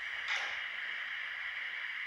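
Sound from an N gauge model train's DCC sound decoder, played through its tiny onboard speaker: a steady thin hiss with a short louder burst about a third of a second in.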